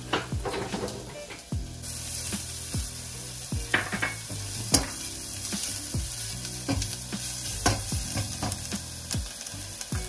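Chopped onion and garlic sizzling in olive oil in a small saucepan, with a silicone spatula stirring them and scraping and tapping against the pan in about a dozen irregular sharp strokes. The sizzle gets brighter a couple of seconds in.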